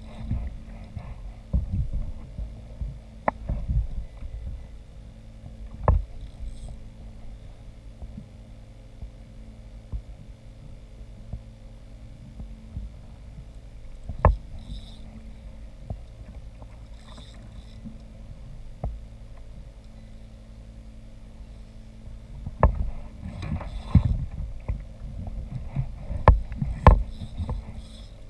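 Knocks and thumps on a kayak's hull over a low, steady rumble, with scattered sharp taps.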